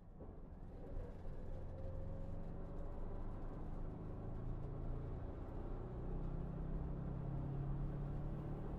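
Steady rumble of a vehicle's engine and road noise heard from inside the moving vehicle, fading in from silence at the start.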